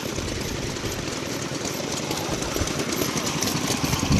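Gokoku AE19 single-cylinder petrol-kerosene stationary farm engine running steadily, a fast even chuffing beat. A single louder knock comes near the end.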